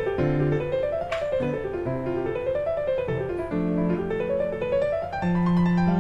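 Background piano music: quick flowing runs of notes rising and falling over held low chords.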